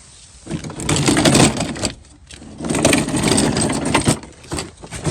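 Two long stretches of scraping and shuffling as a person slides out from under a car on the ground.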